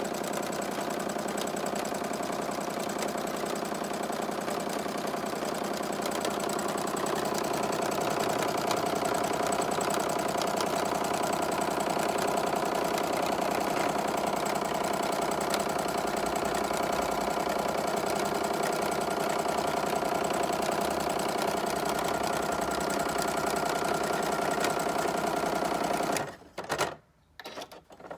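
Domestic sewing machine running steadily at speed, its needle stitching fast through fabric in free-motion (freehand) stitching. It stops abruptly near the end.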